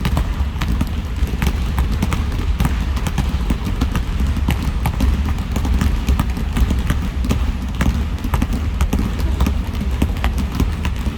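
Several basketballs being dribbled at once on a gym floor: many irregular, overlapping bounces several times a second.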